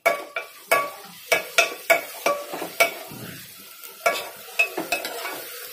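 White plastic spatula stirring and scraping softened onions, tomatoes and ginger-garlic paste frying in oil in a pot: quick scrapes and knocks, about three a second with a short lull past the middle, over a steady sizzle. The masala is being sautéed until its aroma comes up.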